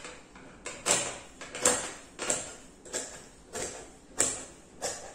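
Tailor's shears cutting through several stacked layers of coat fabric on a marble table: seven crisp snips, evenly paced about one and a half a second.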